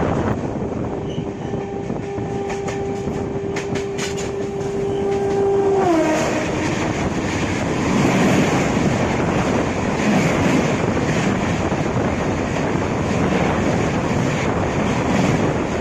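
Train horn sounding one long steady note, its pitch sliding down as it ends about six seconds in. Then the rattling and rushing of the train running along the track grows louder.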